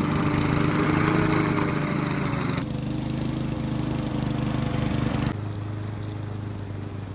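A walk-behind gas lawn mower engine running steadily as the mower rolls away on its own. Its steady hum drops in level in two steps, about two and a half and five seconds in.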